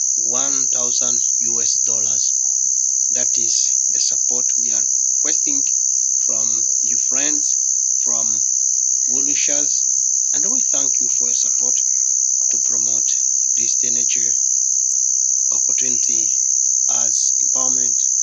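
A loud, steady high-pitched shrill that does not let up, with people talking indistinctly beneath it.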